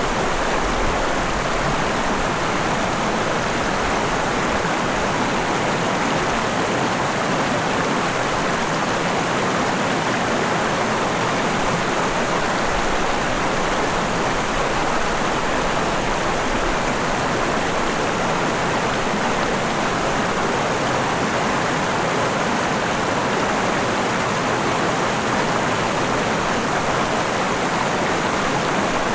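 Mountain river running over rocks: a steady, unbroken rush of flowing water.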